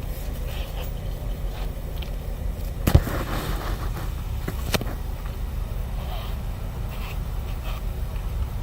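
Steady low rumble of a car heard from inside the cabin, with one sharp click or knock about three seconds in and a smaller one a couple of seconds later.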